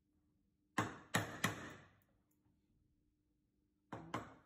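Wooden mallet striking the handle of a mortise chisel, driving it into clamped timber to chop out a mortise: three quick sharp taps about a second in, and two more near the end.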